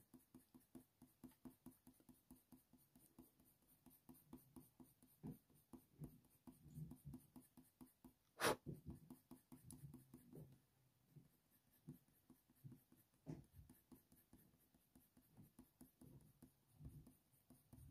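Faint, quick strokes of a Faber-Castell Polychromos colour pencil shading on hot-press watercolour paper, with one louder sharp click about eight and a half seconds in.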